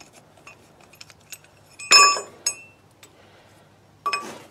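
Metal-on-metal clinking of a spanner on the starter-motor and pump-bracket bolts of a tractor engine: a sharp ringing clink about two seconds in, a lighter one just after, and another near the end, with faint ticks of the tool between.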